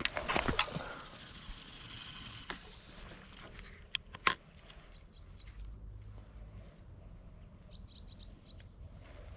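Faint bird chirps over outdoor ambience. A short rustling burst comes at the start, and two sharp clicks come close together about four seconds in.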